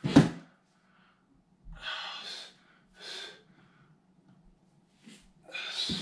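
A man breathing hard from exertion, with sharp breathy exhalations about two and three seconds in and again near the end. There is a thump on the foam floor mats just after the start, the loudest sound here.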